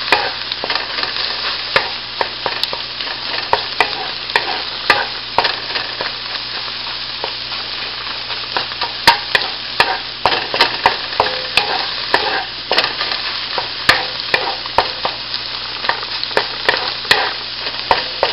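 Scallops and scrambled egg sizzling in oil in a frying pan, with a steady hiss, while a wooden spatula stirs them, scraping and knocking against the pan at frequent irregular moments.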